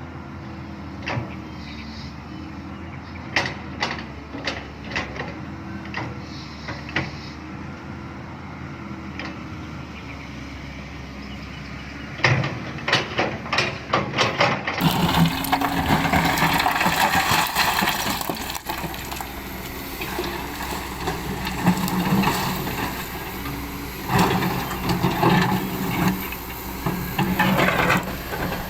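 Excavator at work: its diesel engine runs steadily under scattered sharp metal clanks and knocks. About halfway the sound changes abruptly to a louder, rougher run of engine and scraping.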